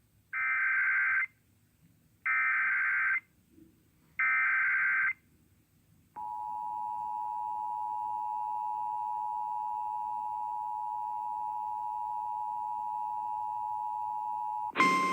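Emergency Alert System header: three short bursts of SAME data tones, then the steady two-tone EAS attention signal for about eight and a half seconds, announcing a tornado warning. A louder single tone cuts in just at the end.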